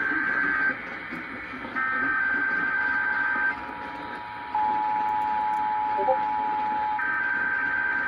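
Emergency Alert System test signals received on AM radio: the buzzy SAME data header bursts, three in a row, overlapped from about three seconds in by the steady EAS attention tone, which becomes a two-tone chord for a couple of seconds, all over AM static hiss.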